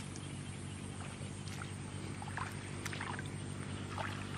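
A steady low mechanical hum, with faint short splashes of feet wading through shallow water in a flooded field.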